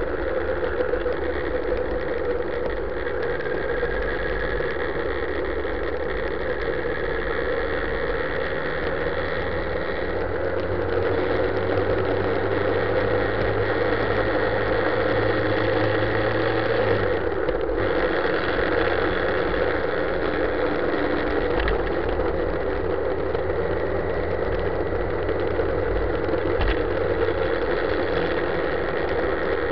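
Motorcycle engine running at steady cruising revs of about 3,000–4,000 rpm, recorded on the bike along with wind noise. The low engine note breaks off briefly a little past halfway, then carries on.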